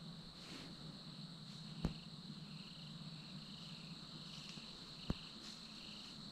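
Night insects trilling steadily, with a second, lower insect chirp repeating about twice a second. Two sharp snaps stand out, one about two seconds in and one about five seconds in.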